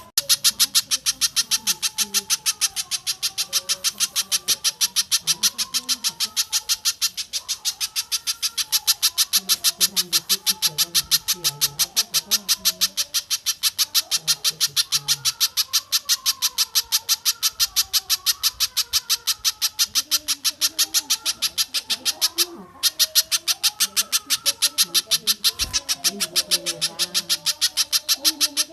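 Recorded bird calls of the spiderhunter (pijantung) and tengkek buto type: a fast, steady run of sharp, high chips, several a second, with one brief break about two-thirds through.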